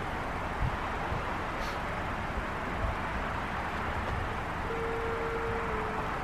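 Steady road traffic and outdoor background noise. About four and a half seconds in, an outdoor warning siren starts a faint, steady alert tone under the traffic.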